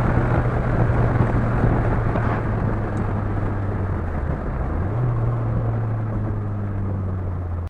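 Chevrolet Vectra 2.2 8-valve four-cylinder engine with a sports exhaust, running at steady speed as a low drone, with tyre and wind noise. The pitch steps up slightly about five seconds in.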